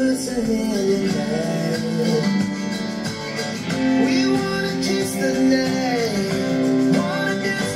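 Music with guitar playing from the Lenovo IdeaCentre AIO 3 all-in-one computer's built-in speakers, as a test of their sound quality.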